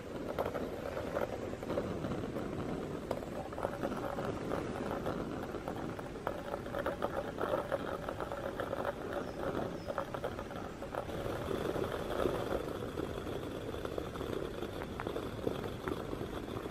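Gas canister stove burner running steadily under a metal mug of water and ground coffee coming to the boil, with irregular bubbling and small pops from the mug.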